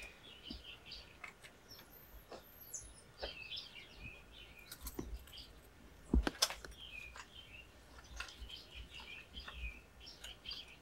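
Small birds chirping and twittering repeatedly, short quick notes throughout, with a couple of sharp clicks, the loudest sounds, a little past the middle.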